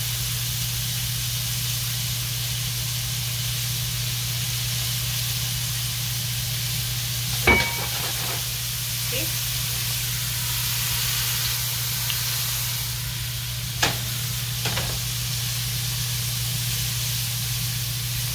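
Thin-sliced beef sizzling in a hot nonstick frying pan as it is stirred and broken apart with a silicone spatula, over a steady low hum. A sharp knock comes about seven seconds in, the loudest sound, and two lighter ones follow a few seconds later.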